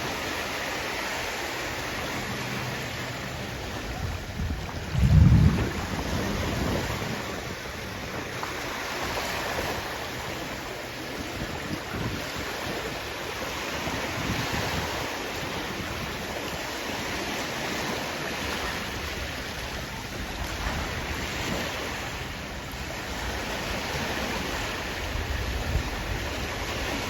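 Sea waves washing in, a steady rush of surf that swells and eases, with wind on the microphone. A brief loud low rumble comes about five seconds in.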